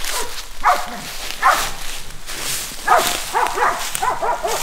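Hog-hunting bay dogs barking at a wild hog they hold at bay: two single barks in the first second and a half, then a quick string of barks from about three seconds in. Dry leaves and brush crunch underfoot between them.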